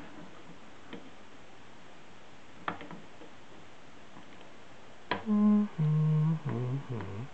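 A man humming a few short notes, the first higher and the rest lower and wavering, loud against the room. Before that, a couple of faint clicks from pocket-calculator keys being pressed.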